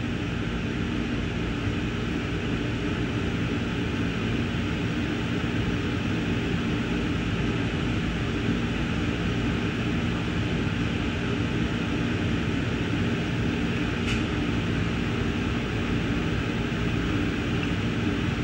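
Steady hum and hiss inside a stopped diesel passenger train: the car's air conditioning and the locomotive's idling engine, with one light click about three quarters of the way through.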